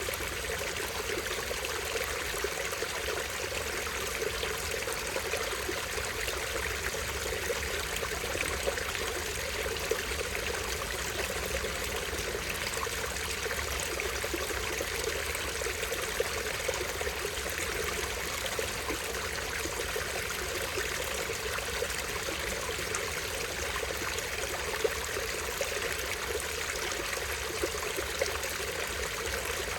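Small stream with a tiny waterfall, the water trickling steadily.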